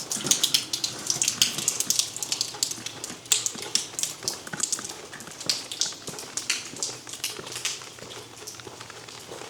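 Rain dripping and splashing close by, a dense run of sharp irregular drops that thins out near the end.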